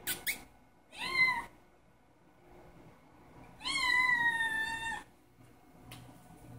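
Kitten meowing for its breakfast: a short meow about a second in, then a longer meow whose pitch falls slightly, lasting just over a second. Two quick sharp clicks come right at the start.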